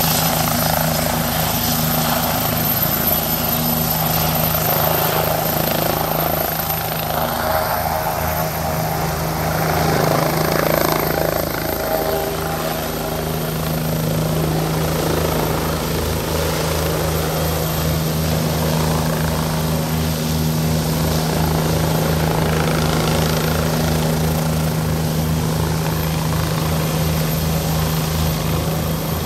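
Bell 429 twin-turbine helicopter hovering and then climbing over an external sling load, with a steady turbine whine over a rapid, even rotor beat.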